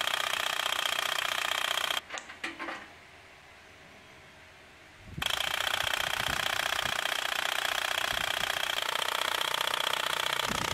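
Handheld valve lapping tool running on an engine valve in a cylinder head, a fast, even buzzing rattle as it laps the valve against its seat. It stops about two seconds in with a few clicks, stays off for about three seconds, then starts again and runs on.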